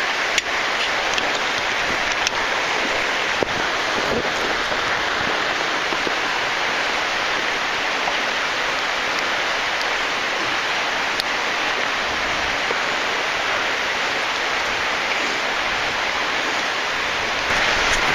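Steady rushing of falling water from a waterfall and its spray in a cave shaft, with a few faint clicks now and then.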